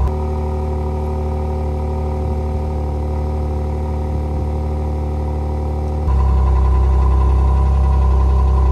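Genesis G70's exhaust at a steady idle, the engine holding an even note with no revving. About six seconds in the sound changes abruptly and gets louder and deeper.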